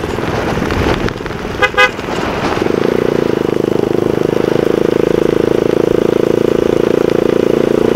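Suzuki Satria FU's single-cylinder four-stroke engine running under way with wind noise. Two short horn honks come about a second and a half in. From then on the engine runs steadily at constant revs.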